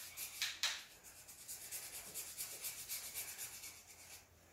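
Black Sharpie marker scratching across paper as an area is coloured in: two heavier strokes in the first second, then quick back-and-forth scribbling strokes, about six a second, fading near the end.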